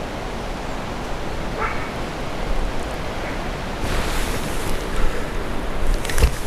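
Wind rumbling on the microphone, with faint barking from a distant hunting dog and a few knocks of handling near the end.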